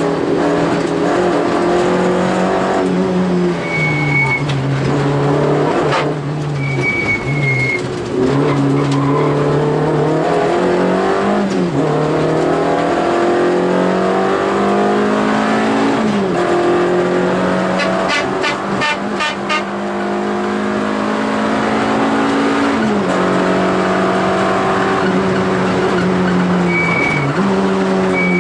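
Peugeot 205 rally car's engine heard from inside the cabin under hard acceleration, revving up repeatedly with sudden drops in pitch at gear changes and lifts for the corners. A few brief high-pitched squeals come and go, and a short run of rapid clicks sounds about two-thirds of the way through.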